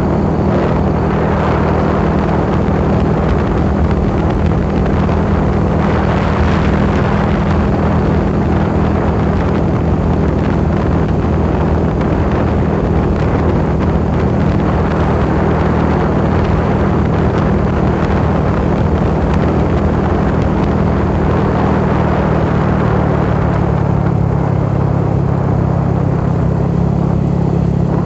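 A vehicle engine running at a steady drone under heavy wind rush from travelling along a road. Near the end the engine note drops lower as the vehicle slows.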